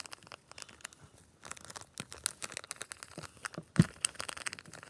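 Slime being squeezed and kneaded by hand, giving a dense run of irregular sticky clicks and crackles, with one louder thump a little before the end.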